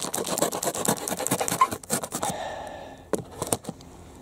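A pocket knife blade cutting along the scored line of a cardboard box: a fast run of scratching, tearing strokes for about two seconds, then a few separate clicks as the cutting stops.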